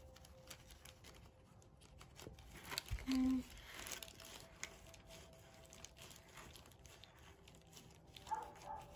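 Faint crinkling and crackling of a thin plastic bag being squeezed and handled around a plant cutting, with a brief low hum and a soft knock about three seconds in.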